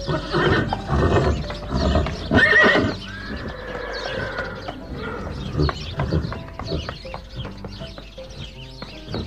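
A horse neighing: several loud whinnies in the first three seconds, then a long high drawn-out call, fading to quieter sounds in the second half.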